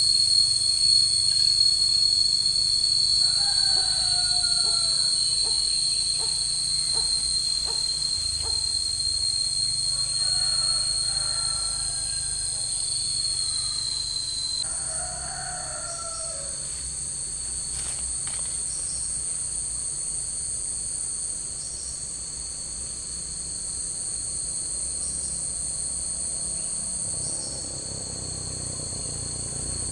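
Steady high-pitched drone of insects, with two layers: the lower one cuts off suddenly about halfway through while the higher one carries on. Three short calls from another animal come in along the way.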